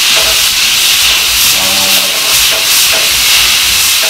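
Thick steak sizzling on a hot ridged griddle pan, a loud, steady hiss of searing meat in oil.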